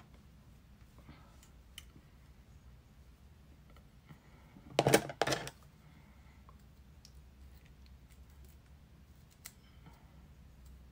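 Handling noise from hair tools: a few light clicks and, about five seconds in, a short, loud double clatter, over a steady low hum.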